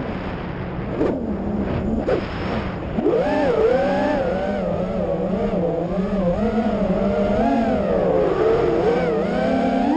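FPV freestyle quadcopter's brushless motors and propellers whining. The pitch drops low as the throttle is cut just before the start, with brief punches about one and two seconds in. About three seconds in it climbs back up, then wavers up and down with the throttle as the quad banks and turns.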